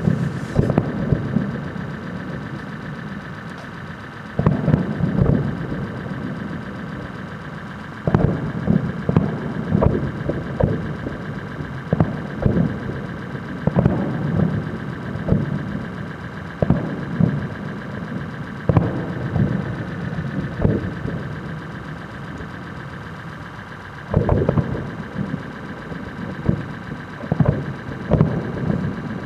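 Fireworks going off in volleys of bangs and crackles every few seconds, over a steady hum.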